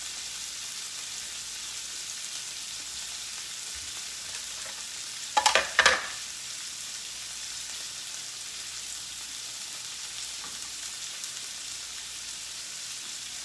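Meat sizzling steadily as it fries in a hot pan. About five and a half seconds in there is a brief, loud double clatter, like a utensil knocking or scraping against the pan.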